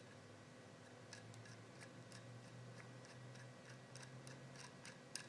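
Near silence with faint, scattered small clicks as a jam nut is put back on and threaded onto a shock absorber's rod by hand, with one slightly louder click near the end.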